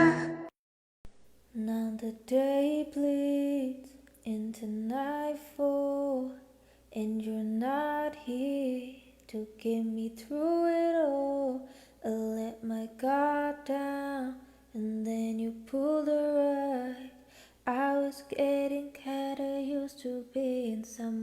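A young woman singing a cappella in short melodic phrases separated by brief pauses. The backing music cuts off about half a second in.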